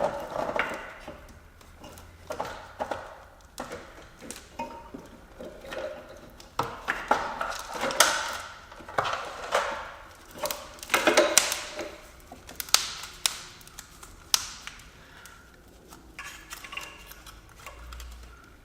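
Hand tools working on the car: a string of irregular metallic clinks, taps and knocks, busiest in the middle.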